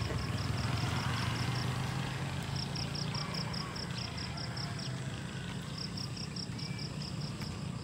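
An insect chirping in three runs of short, evenly spaced pulses, about six a second, over a low engine hum that slowly fades away.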